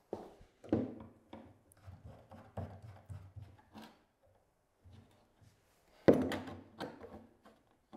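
Knocks, clicks and rattles of hard plastic adjustable cabinet feet being handled and twisted, with a combination square set against them. A louder knock comes about six seconds in.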